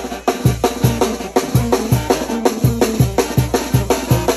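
Music with a driving drum beat: low bass-drum hits about two to three a second, with cymbal and snare strikes and a steady bass line under them.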